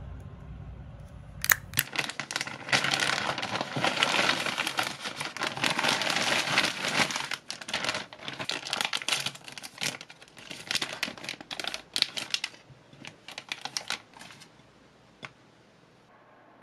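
A protein-bread wrapper being crinkled and torn open, a busy run of crackling and small clicks that begins about a second and a half in and dies away a couple of seconds before the end.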